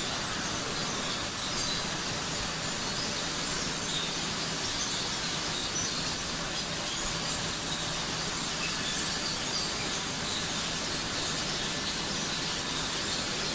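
Steady mechanical running of a tortilla production line: gear motors, rollers and conveyor belts, with short high-pitched squeaks and a few light clicks scattered through.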